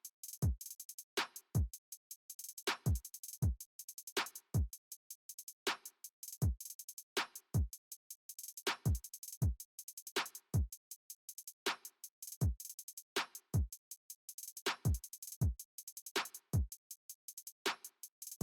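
Electronic background music with a drum-machine beat: deep kick drums that drop in pitch, about one to two a second, under a fast run of high ticks.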